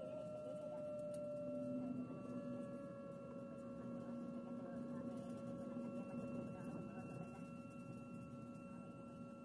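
Airbus A320 cabin during taxi: steady whine of the jet engines at low thrust over a rushing hiss. The main tone sags slightly in pitch over the first few seconds, then holds.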